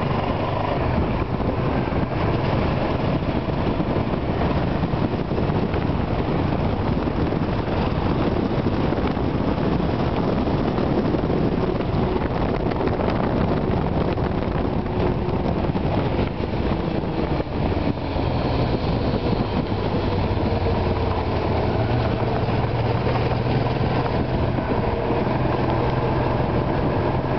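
A moving vehicle's engine running steadily under a constant rush of road and wind noise, with no change in speed or revs.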